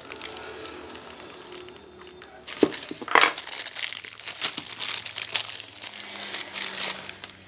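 Thin clear plastic bag crinkling as it is pulled and torn open by hand, with two louder sharp crackles a little under three seconds in.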